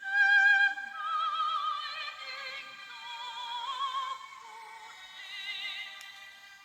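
Background music: a high melody of long held notes with strong vibrato, in an operatic style, moving to a new note every second or so, loudest at the start.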